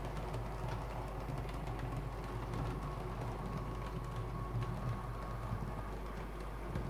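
OO-scale model Class 47 locomotive and Mk2f coaches running on the layout track: a steady, even hum with a faint high tone and light scattered ticking from the wheels on the rails.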